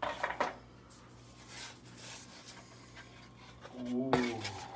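Cardboard packaging being handled and slid open, with sharp rustling clicks at the start and a soft scraping about two seconds in. Near the end comes a short hummed voice sound.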